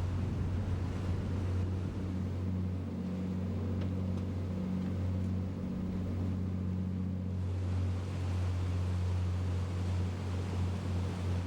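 Fishing boat's engine running steadily, a low drone, with water and wind noise over it.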